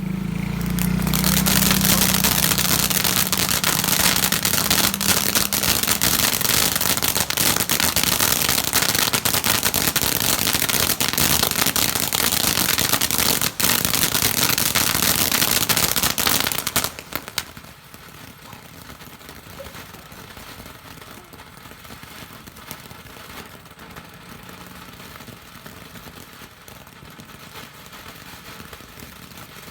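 Caishen ground fountain firework spraying sparks with a loud, dense hissing crackle that starts about a second in. Around two-thirds of the way through it stops abruptly, leaving only a much fainter background hiss.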